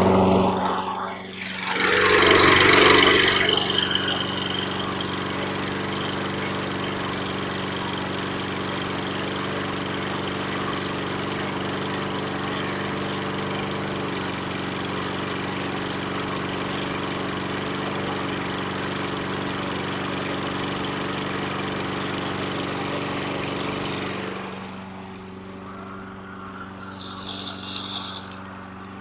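Toro walk-behind mower's Kohler 675 single-cylinder engine, freshly started on the first pull, running steadily. A loud surge of noise comes about two seconds in. About 24 seconds in the sound drops to a quieter level while the engine keeps running, with a few short high rattles near the end.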